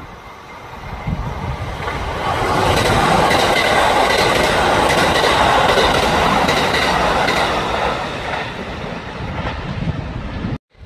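Kintetsu electric train passing by, swelling over about two seconds to a loud rush and rumble with a steady high tone on top, then fading away. It cuts off suddenly just before the end.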